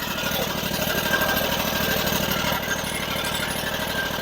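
Portable bandsaw mill's engine running steadily at speed with its newly refitted clutch, pulling against a blade that is stuck in the log.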